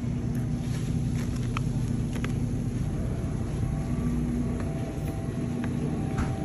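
Steady low rumble of store background noise, with a faint hum and a few faint clicks.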